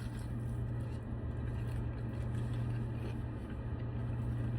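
Steady low hum of a car's engine idling, heard from inside the cabin, with faint chewing.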